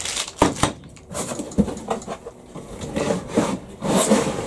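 Unpacking noise: a few sharp knocks in the first two seconds as the plastic-wrapped stand legs are set down on a bench, then rustling and scraping of plastic and cardboard from about three seconds in as the baskets are lifted out of the box.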